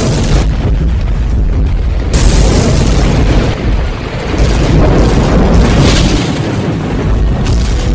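Cinematic trailer-style soundtrack under animated title cards: deep booming hits over loud, dense music, with a sudden new hit about two seconds in.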